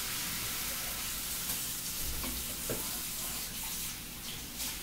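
Food sizzling in a hot frying pan: a steady hiss that slowly fades, with a few faint clicks.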